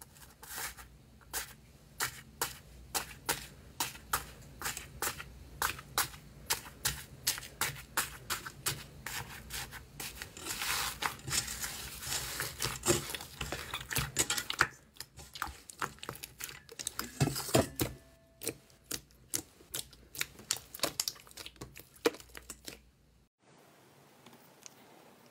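Crunchy iceberg slime crackling and popping as hands press and knead it: a run of sharp pops, about two a second, that thickens into a dense crackle midway, then thins out again before stopping suddenly near the end.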